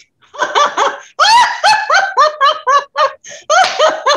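A woman's deliberate, pretend belly laugh, done as a stress-relief exercise: a quick string of 'ha-ha' syllables, about four a second, with a short breath near three seconds in before it carries on.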